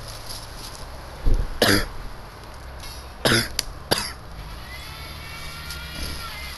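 Volkswagen Caddy driving off-road, its engine running low under four loud, sudden bangs and thumps in quick succession, with a faint rising whine near the end.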